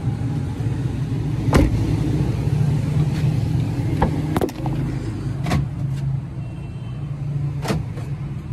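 Several sharp knocks and clicks as a Suzuki Wagon R's door, trim and interior are handled, over a steady low hum.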